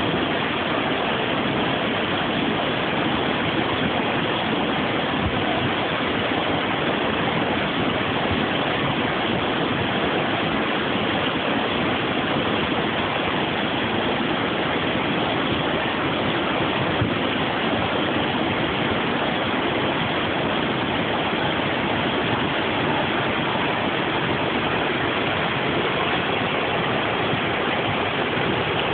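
Rushing floodwater: a steady, unbroken rush of fast-flowing water that does not change.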